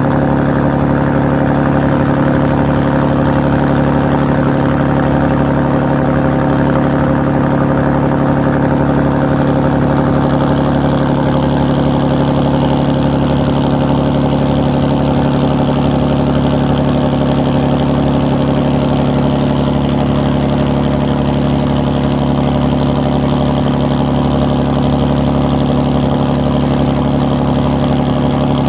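Ferry engine running steadily: a constant low drone with strong even tones that holds unchanged throughout.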